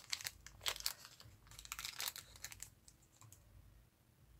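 Shell buttons clicking against one another as they are handled and picked through: quick clusters of small clicks in the first second and again around two seconds in, then quieter.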